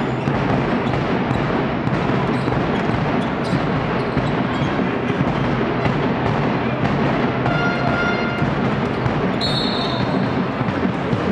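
Echoing game sound of indoor basketball in a sports hall: the ball bouncing, sneakers squeaking on the court and steady background noise, with two short high squeaks about three quarters of the way through and near the end.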